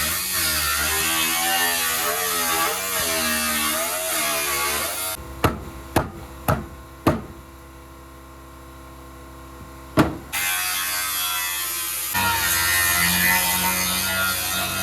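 Power cutting tool buzzing through car body sheet metal, its pitch wavering as it bites. About five seconds in it stops, four sharp knocks follow about half a second apart and another comes a few seconds later, then the tool starts cutting again.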